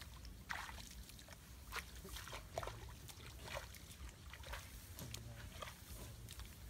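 Faint, irregular sloshing splashes of feet wading through shallow water and grass in a flooded rice paddy, over a low rumble of wind on the microphone.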